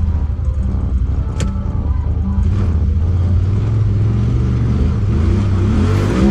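Side-by-side UTV engine running under way, fairly steady with its pitch rising a little past the middle. A single sharp knock about a second and a half in.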